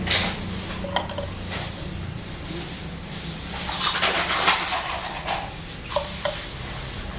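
Small clicks and light clattering, as of small objects and tools being handled, with a louder rustle near the middle. A low steady hum sounds for the first couple of seconds and then drops away.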